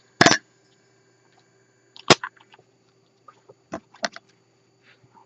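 Master Lock Magnum padlock being handled by hand: a few sharp clicks and knocks, the loudest right at the start, another about two seconds in and two close together near the end.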